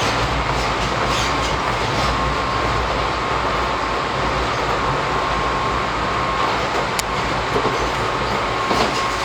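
Izuhakone Railway 3000-series electric train running at speed, heard from inside the carriage: a steady rumble of wheels on rail with a faint steady high tone and a few sharp clicks as the wheels pass over rail joints.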